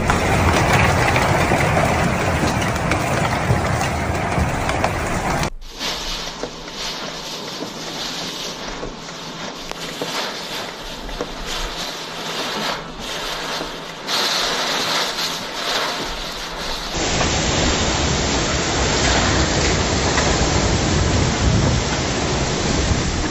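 Hailstorm: a dense, loud hiss of hail and rain driven by strong wind, with wind buffeting the microphone. It drops sharply to a quieter, thinner hiss about five seconds in, with faint scattered hits, and turns loud again about seventeen seconds in.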